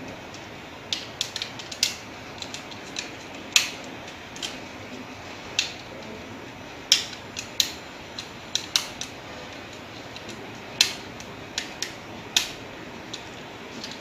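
Irregular sharp clicks and snaps of a neon tester screwdriver working the terminal screw of a plastic three-pin power socket while a wire is fastened in, about twenty clicks of differing loudness.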